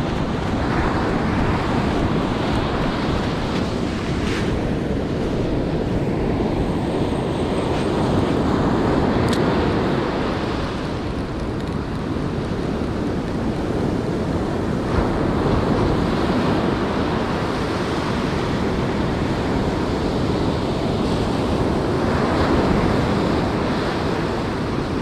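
Surf breaking and washing up a sandy beach, swelling every several seconds, with wind buffeting the microphone.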